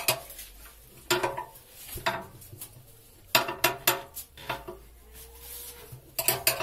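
Scattered metallic clinks and knocks of a wrench, bolt and nut as the electric motor's mounting bracket is bolted on from underneath. There are single clinks about a second and two seconds in, a quick run of them in the middle, a quiet spell, then more clinks near the end.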